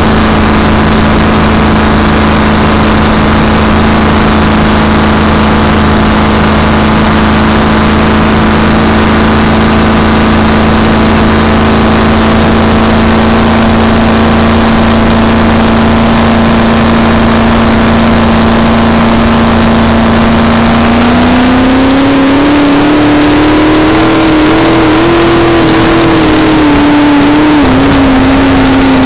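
Supercharged Ford engine of a blown flat-bottom race boat running steadily under way. About 21 seconds in, the pitch climbs as the throttle opens, wavers up and down for a few seconds, and then settles a little higher near the end.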